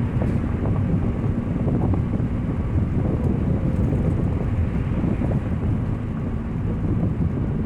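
A 2000 Nissan Altima's 2.4-litre four-cylinder heard from inside the moving car: a steady low exhaust rumble, loud from a leaking exhaust, mixed with wind and road noise.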